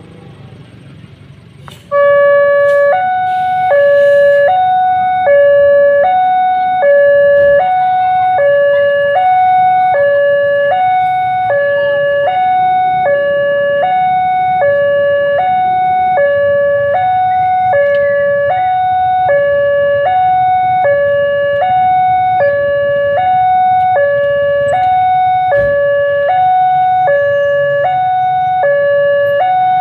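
Electronic railway level-crossing alarm at an Indonesian crossing starting abruptly and sounding a steady, repeating two-tone high-low ding-dong, the warning that a train is approaching and the barriers are closing.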